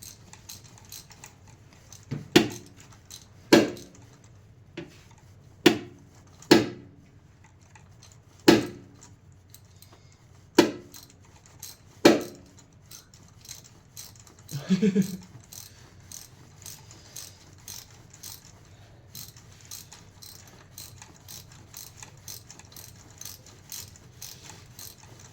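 Socket ratchet working on the engine's spark plugs. Sharp metallic clicks with a short ring come every second or two, then lighter ticking follows.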